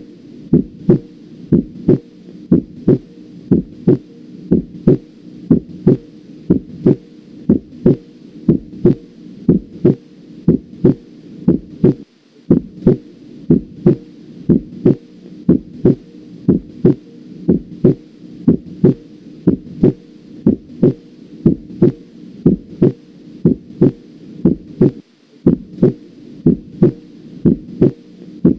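Normal human heart sounds as heard through a stethoscope: short lub-dub pairs about once a second. The second sound (S2) is the shorter, slightly higher 'dub' made by closure of the aortic and pulmonary valves, marking the start of ventricular diastole.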